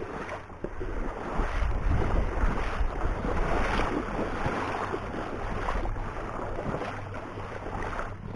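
Water splashing and sloshing around a small boat moving across a marsh, full of small irregular splashes, with wind rumbling on the microphone.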